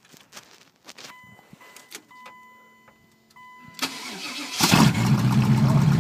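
Car dashboard warning chime beeping on and off, then the engine cranks briefly and catches about four and a half seconds in on a cold start, settling into a steady loud idle.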